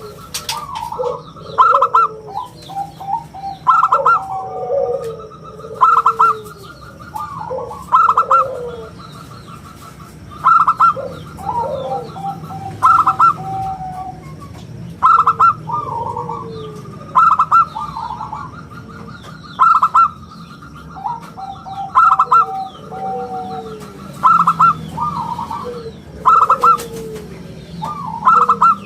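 Zebra dove (local perkutut) cooing in full song, with a loud coo phrase repeating roughly every two seconds. Faint chirps of small birds sound behind it.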